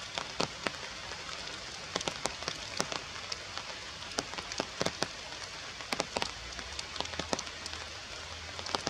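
Steady rain falling on forest foliage, with many sharp, irregular ticks of drops striking leaves and branches close by.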